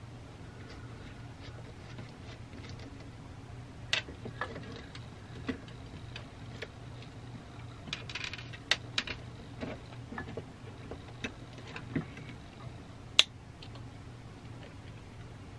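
Scattered clicks, taps and short metallic rattles of hand tools and small parts being handled while a power supply's potentiometer and rheostat bracket is worked on. A steady low hum runs underneath, and one sharp click stands out about thirteen seconds in.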